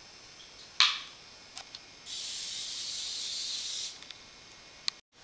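PAM cooking spray aerosol can spraying into a baking dish: one steady hiss of about two seconds. A sharp click comes a little before it.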